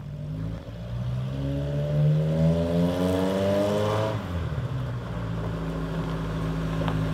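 Lifted off-road rig's engine revving up as it drives up the driveway, its pitch climbing steadily for about three seconds. About four seconds in it drops back to a steady, lower running note.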